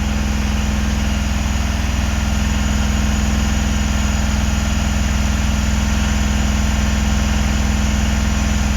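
Mahindra Jeeto BS6 diesel engine idling steadily near the end of a forced DPF regeneration, during the DEF cooling-down stage.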